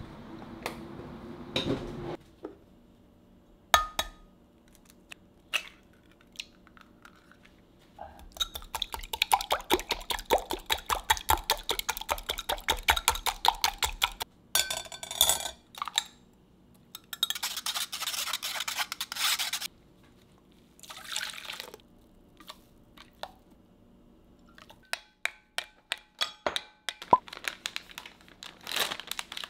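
Kitchen work: utensils clinking against dishes and bowls, a long run of fast, rhythmic stirring in a bowl, and short bursts of running water.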